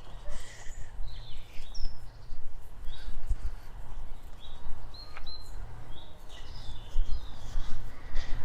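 Woodland birds singing and chirping, short high whistles scattered throughout, over an uneven low rumble of wind buffeting the microphone.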